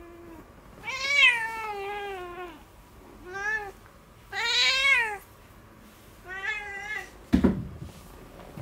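Domestic cat meowing in protest four times while held for a nail trim, the first meow long and falling, the others shorter. A single thump comes near the end.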